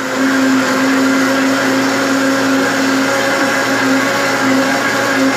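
Electric countertop blender running steadily at an even pitch, puréeing cooked fish heads and guts with water into homemade pet food.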